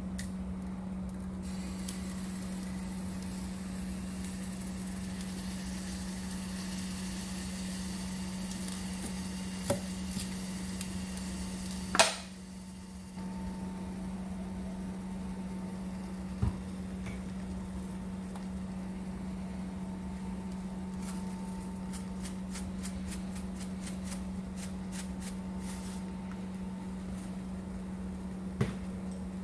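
A steady low hum with kitchen handling noises over it: a few knocks and clicks of a saucepan and a sauce bottle, the loudest a sharp knock about twelve seconds in, and a quick run of light ticks about three-quarters of the way through.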